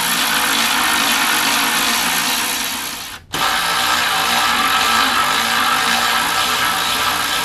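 Handheld power drill/driver running bolts into the mower deck, in two long runs with a brief stop about three seconds in.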